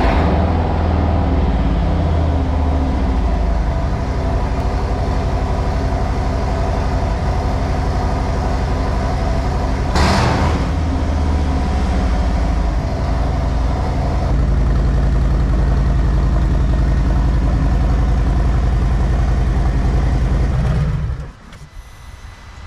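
Harley-Davidson Street Glide Special's V-twin engine idling steadily, its pitch settling over the first few seconds. A short burst of noise comes about ten seconds in, the engine is louder from about two-thirds of the way through, and it cuts off suddenly near the end.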